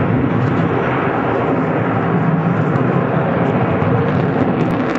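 Sukhoi Su-27 fighter jet in flight, its twin AL-31F afterburning turbofan engines making a loud, steady jet noise.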